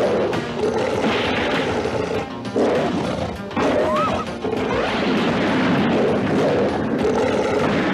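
Film soundtrack music mixed with crashing impact sound effects, with loud surges about a second in, about two and a half seconds in and again past the middle.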